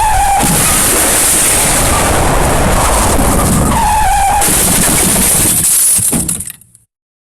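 A loud, dense crashing and smashing sound effect with brief squealing tones, cutting off suddenly about six and a half seconds in.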